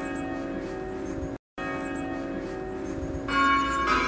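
Church bells of St. Vincent Church ringing, a sustained ringing tone that is briefly cut off about one and a half seconds in, with a louder fresh strike about three seconds in.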